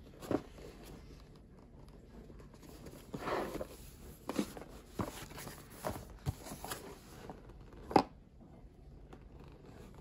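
Hands handling and turning over a cardboard keyboard box: a rustling scrape of the cardboard about three seconds in and several light knocks. The loudest sound is a sharp tap at about eight seconds.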